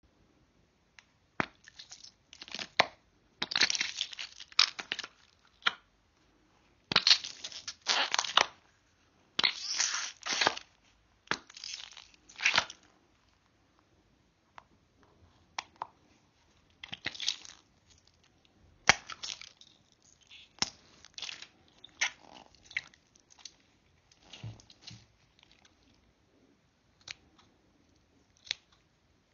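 Close-up squishing and crackling of a mesh-netted, slime-filled squishy stress ball squeezed in the hand, in bursts of a second or so. Past the middle the sounds thin out into sharper, scattered snips and clicks as scissors cut the mesh netting.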